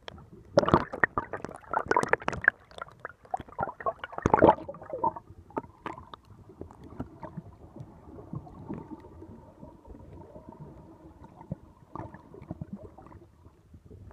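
Water splashing and sloshing around a camera at the sea surface, with loud sharp knocks for the first five seconds or so, then the muffled, quieter sound of the water once the microphone is submerged.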